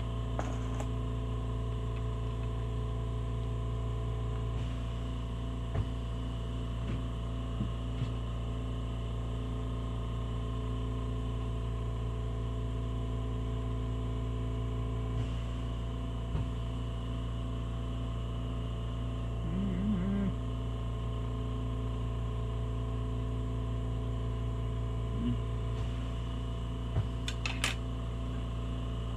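Small oxy-propane torch flame burning steadily against a cornstarch and baking-soda Starlite test disc, a continuous low hum and hiss with a few light clicks from the metal tongs.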